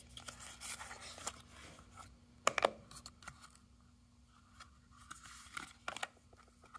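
A small paperboard box being opened by hand: faint scraping and rustling of the card as the flap is lifted and the inner tray slid out, broken by a few sharp clicks and taps, the loudest about two and a half seconds in, with more taps near the end.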